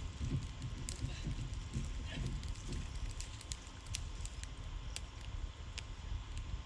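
A wood fire burning in a brick-lined trench, crackling in scattered sharp pops over a low steady rumble.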